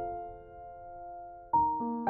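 Background piano music: a held chord fading away, then new notes struck about one and a half seconds in.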